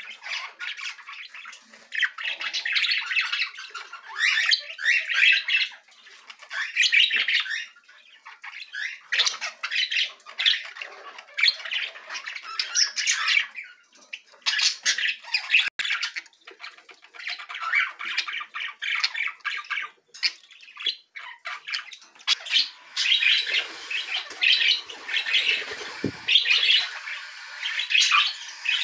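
Budgerigars chattering: repeated bursts of quick, rapid notes, each lasting a second or two, with short pauses between.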